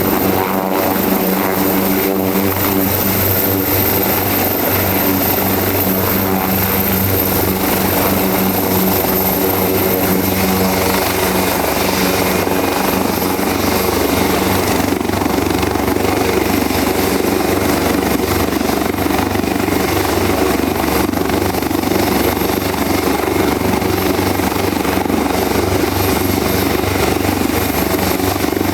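Leonardo AW189 twin-turbine helicopter running: steady turbine and rotor noise with a thin high whine on top, which dips slightly in pitch about ten seconds in.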